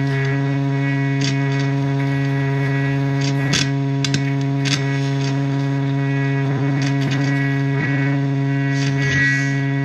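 Live noise music: a steady, distorted drone holding one low pitch with many overtones, with scattered crackles and clicks through it.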